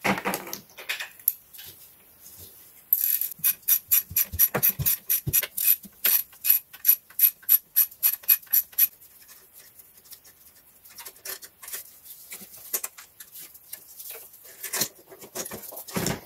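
Ratchet wrench clicking in an even run of about four clicks a second for some six seconds while undoing the 8 mm bolts that hold the 1.6 HDi fuel filter housing, then scattered light clinks of metal and plastic parts being handled, with a louder knock near the end.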